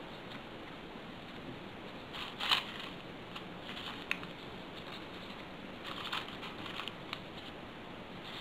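Folded paper origami modules rustling and crinkling in the hands as they are slid onto one another, in a few short bursts, the loudest about two and a half seconds in and another cluster about six seconds in.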